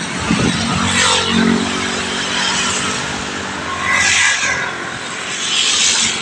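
Wind rushing over a bicycle-mounted microphone while a motor scooter drones steadily as it passes close alongside.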